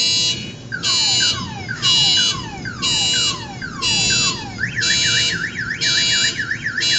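Car alarm set off by thunder, cycling through its tones. A beep sounds about once a second throughout, with falling whoops between the beeps at first; about two-thirds of the way through, the whoops give way to a fast up-and-down warble.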